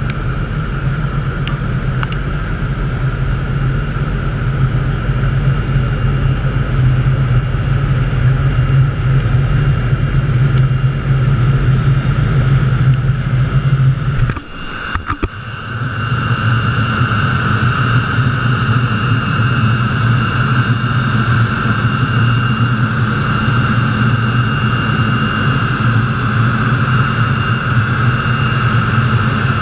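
Pavement milling machine at work close by: its diesel engine runs with a steady low hum while the cutter drum grinds up the asphalt. About halfway through the sound briefly drops out with a knock of handling noise, then the machine carries on as loud as before.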